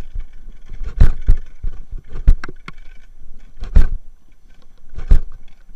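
Wheels of a dog-pulled dryland rig rolling over a rough dirt trail, with a rushing noise and about six sharp knocks and rattles as the rig and camera jolt over bumps.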